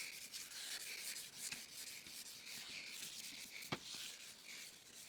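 Hand wet-sanding a plastic headlight lens with a 2000-grit pad in repeated back-and-forth strokes, a faint scrubbing hiss, taking off a very thin layer of oxidized plastic. A single sharp click comes a little before four seconds in.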